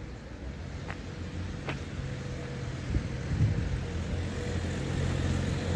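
A car engine running with a steady low hum, slowly growing louder.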